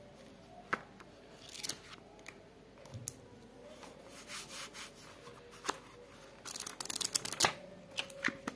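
Paper sheets of a small diary handled and thumbed, with scattered rustles and taps. About two-thirds of the way through comes a quick run of sharp page flicks, the loudest part.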